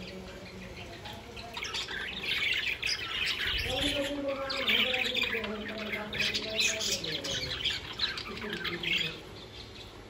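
A flock of budgerigars chirping and chattering continuously, many rapid high calls overlapping. The chatter builds after the first second or so and is busiest in the middle. A few lower, drawn-out calls are mixed in.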